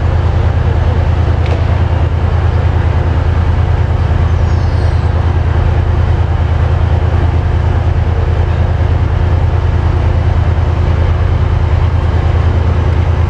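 Diesel train engine idling steadily: a loud, even, low drone with a fast pulse and a faint steady hum above it.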